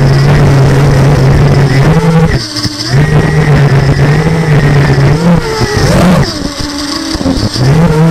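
FPV quadcopter's motors and 6-inch tri-blade propellers buzzing in flight at a steady pitch, with two brief throttle drops, about two and a half and six and a half seconds in.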